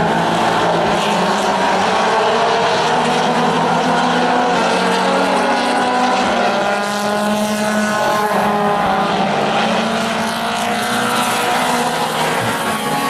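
Several four-cylinder Mini Stock race cars running flat out on a paved oval. Their engine notes rise and fall as the cars come off and into the turns.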